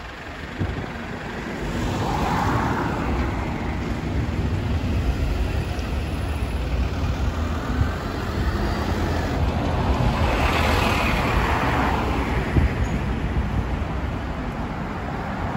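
Road traffic on a busy town high street: a steady low engine rumble with cars and buses passing close by, two passes swelling up about two seconds in and again around ten to twelve seconds in.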